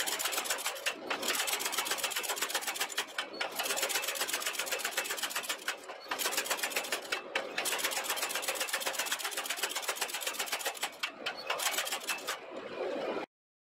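Small power hammer striking a glowing billet of forge-welded nail steel in a fast, even rhythm of blows, with a few brief breaks as the billet is moved. The blows cut off abruptly near the end.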